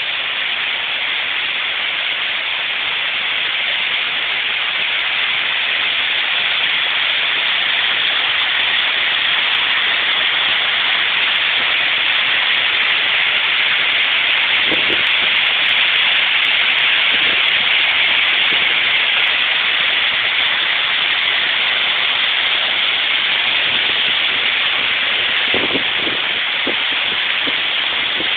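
Waterfall pouring into a rocky pool: a loud, steady rush of falling water.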